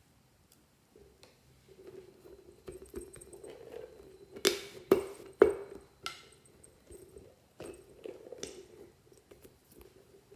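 Hands pressing and kneading soft slime, giving irregular wet squishing and crackling sounds. Three loud, sharp pops come in quick succession a little before the middle.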